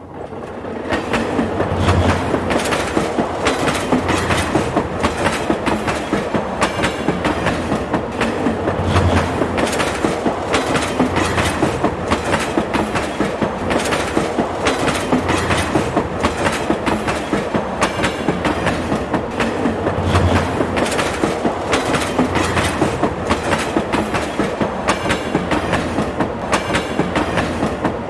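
A train running along the track, its wheels clicking over rail joints in a fast, regular clickety-clack beneath a steady rumble, rising in the first second or two.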